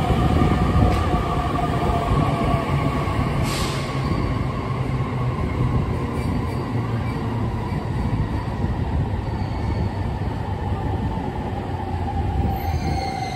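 E231 series electric commuter train pulling into a station platform and slowing, with a steady heavy rumble of wheels and running gear and faint tones from its drive. Thin high squeals from the wheels and brakes start near the end as it brakes toward a stop.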